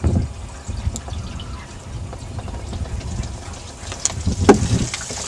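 Water poured from a plastic jug into a bus radiator, splashing and gurgling, with a couple of sharper knocks about four seconds in.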